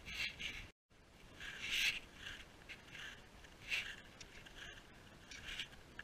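Snowshoes crunching on packed snow in a walking rhythm, a crunch every second or so, with the sound cutting out completely for a moment just under a second in.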